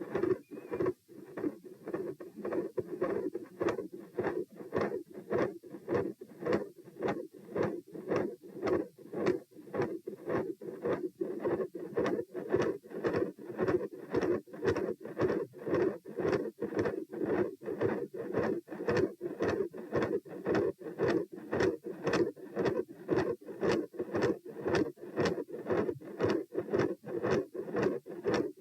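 Human heartbeat heard through a stethoscope at the pulmonic area, fast and regular, each beat a pair of sharp first and second heart sounds. A mid-systolic murmur sits between them and the second sound is very loud.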